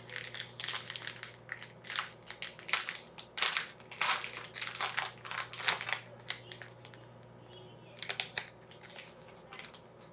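Foil wrapper of a trading card pack crinkling as it is torn open by hand. Rapid, irregular crackles run for about seven seconds, then come again in a shorter flurry near the end.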